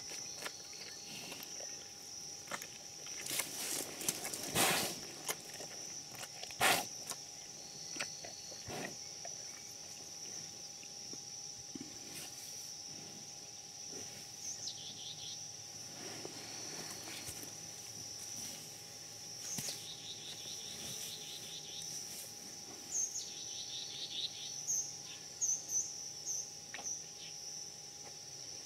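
A steady high insect drone, with bursts of short bird chirps in the second half. Scattered sharp scuffs and rustles come in the first nine seconds, typical of a baby black rhino pushing about in sawdust.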